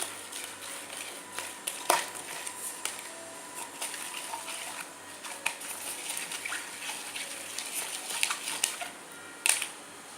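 Wet slime mixture being worked in a small plastic container: irregular clicks, scrapes and knocks of the container and utensil with wet, squelchy sounds, with sharper knocks about two seconds in and near the end.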